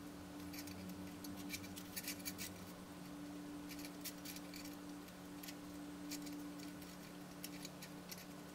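Faint scattered clicks and light ticks of thin porcelain petal fragments touching and tapping against each other as fingertips fit them into place, coming in small clusters over a steady low hum.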